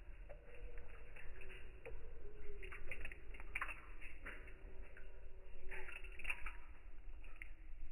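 Water dripping and trickling, with irregular small clicks and splashes.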